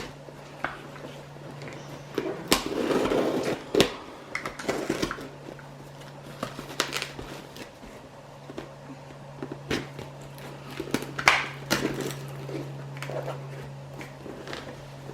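A cardboard shipping box being opened and handled by hand: scattered knocks, clicks and rustles, with a longer stretch of rustling and scraping about two to four seconds in. A steady low hum runs underneath.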